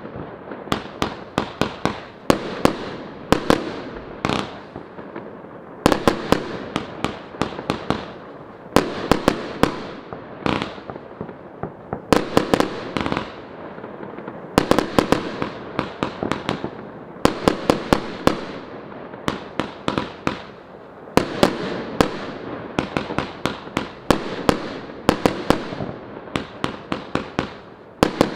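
A 100-shot 25 mm fireworks cake firing continuously: rapid launch thumps and sharp bursts in quick clusters, several a second, with crackling trails between them.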